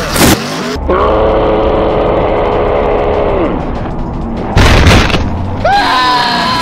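Dubbed-in comedy sound effects: a boom, then a long held tone that slides down at its end, a second boom, and short rising squeaky glides near the end.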